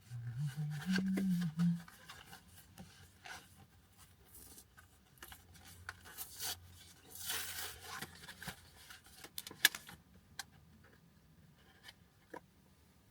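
Handling noises: scattered small clicks and taps, with a rustle about seven seconds in. A short low hum steps up and down in the first two seconds.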